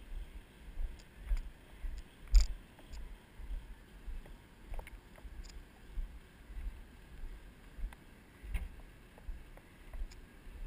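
Walking footsteps heard as regular low thuds, about two a second, as the walker crosses concrete onto a wooden floating dock. A sharp knock about two and a half seconds in stands out above the steps, with a few lighter clicks.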